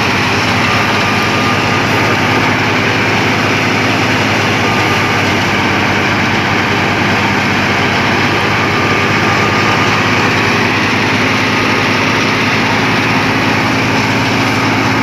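Wheat thresher running steadily under engine power: a loud, even mechanical din over a constant low engine hum.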